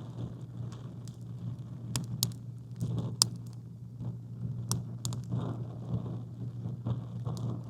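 Campfire crackling, with a handful of sharp wood pops over a steady low background noise.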